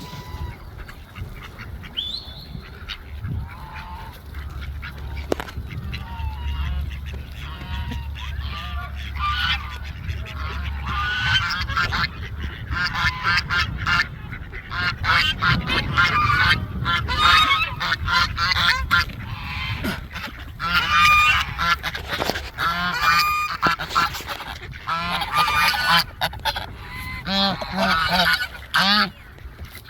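A flock of geese honking, many calls overlapping, growing denser and louder partway through.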